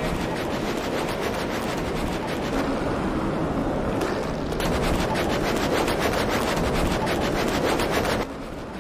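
Curling brooms sweeping the ice in a fast run of scrubbing strokes, over the low rumble of a granite curling stone sliding. The strokes get louder about halfway through and stop abruptly near the end.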